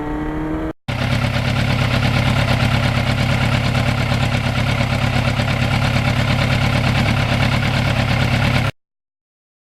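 1991 Yamaha FZR1000's inline-four engine rising in pitch under acceleration, then after an abrupt break running loud at a steady pitch for about eight seconds before cutting off suddenly.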